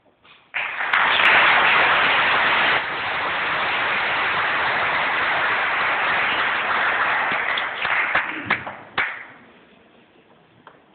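Audience applauding. It starts abruptly under a second in, is loudest for the first couple of seconds, then thins to a few scattered claps and stops about nine seconds in.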